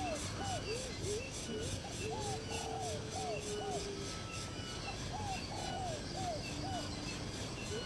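A bird singing the same phrase of short, arching whistled notes over and over, every two to three seconds. A fast, even pulsing of insects runs behind it.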